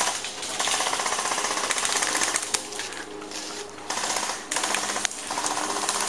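Airsoft electric rifle firing full-auto: several long bursts of rapid clicking with short breaks between them.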